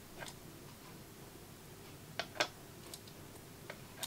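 Faint, sharp clicks and taps from a handheld vacuum pickup pen: its plunger being pressed and released and its metal tip touching a button cell, about six clicks in all, the loudest two close together a little after two seconds in. The pen, its needle now sealed with epoxy, holds suction and lifts the cell.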